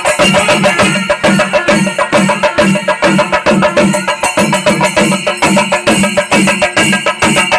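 Chenda melam: a loud ensemble of Kerala chenda drums beaten with sticks, with ilathalam hand cymbals, playing a rapid, dense rhythm that goes on without a break.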